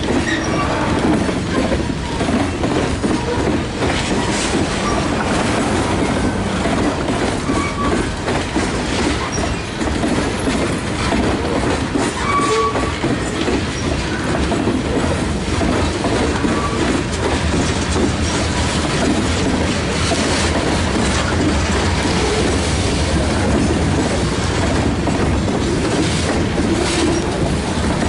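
Covered hopper cars of a freight train rolling past close by: a steady rumble and clatter of steel wheels over the rail joints, with a few brief, faint wheel squeals.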